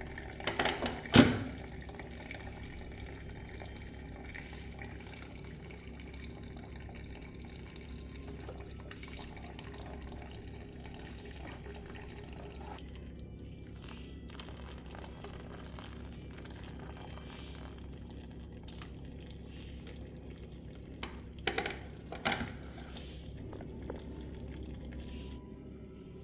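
Water running steadily from a tap, with a loud clatter about a second in and a few knocks near the end.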